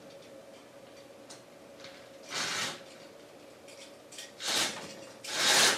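A cat slurping with its tongue: three short slurps of about half a second each, the last two louder.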